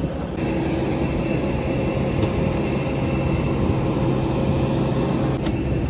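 Steady jet-engine drone inside an airliner cabin: a constant rushing noise with a low hum, cut abruptly about half a second in and again near the end where clips are edited together.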